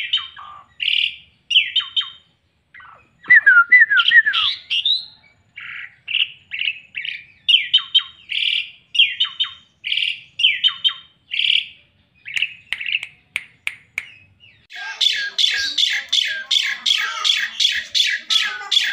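Caged songbirds singing: separate phrases of chirps and whistles, with a falling warbled run about 3 seconds in. About 15 seconds in it gives way to an Asian pied starling's louder, harsh repeated chatter at about three notes a second.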